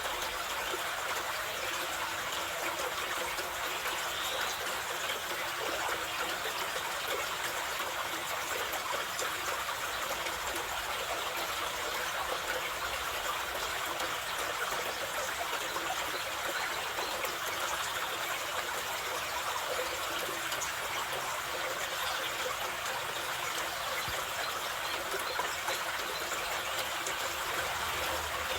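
Mountain river rushing steadily over rocks, an even hiss of running water.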